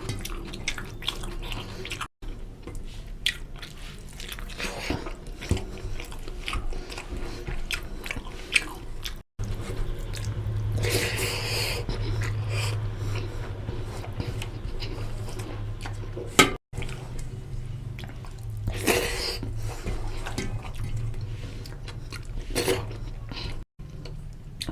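Close-miked eating: chewing and biting of chicken curry with rice, full of small irregular wet mouth clicks. The sound drops out briefly four times.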